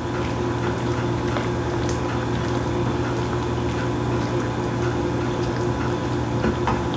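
Creamy sour cream and cheddar cheese sauce with broccoli simmering in a pan on the stove, bubbling with scattered small pops, over a steady low hum.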